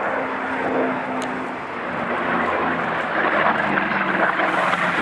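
Curtiss Hawk 75's Pratt & Whitney R-1830 radial piston engine running in flight during an aerobatic display. The engine note shifts in pitch about two seconds in and grows louder toward the end.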